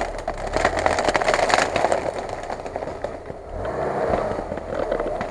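Lada Niva's engine running as the car pushes through dry reeds and brush, with dense crackling and snapping of stems and twigs in the first two seconds. The engine revs up briefly about three and a half seconds in.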